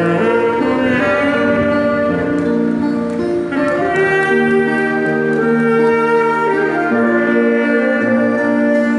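Instrumental music: a saxophone plays a slow melody of long held notes over a backing track.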